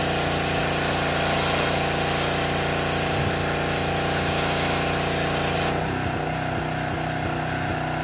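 Pressure washer spraying water onto a wooden deck, a loud steady hiss over the hum of its motor. The spray cuts off abruptly a little under six seconds in as the trigger is released, leaving the machine's motor running.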